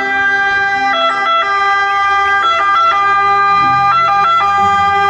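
Ambulance siren sounding continuously, a loud held tone that briefly shifts pitch every second or so.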